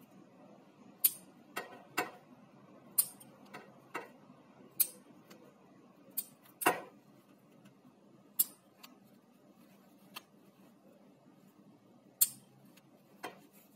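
Sharp, irregular snips, roughly one a second, as the stitches of a knit sweatpants crotch seam are cut and pulled out by hand while unpicking it.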